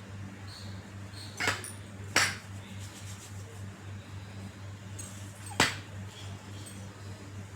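Three short, sharp sounds over a steady low hum.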